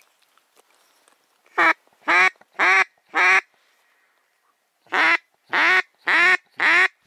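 Duck call blown close to the microphone, quacking in two series of four short quacks, about half a second apart, with a pause of under two seconds between the series. Each quack falls in pitch. It is a hunter calling to passing ducks.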